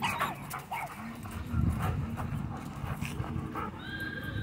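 Dog growling low and rumbling while it tugs on a rope toy in a game of tug of war.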